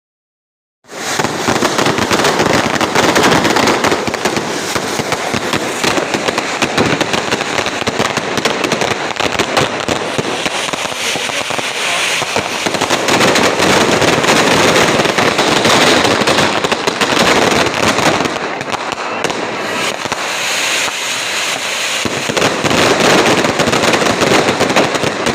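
Fireworks going off in a dense, continuous barrage of rapid bangs and crackles, starting suddenly about a second in.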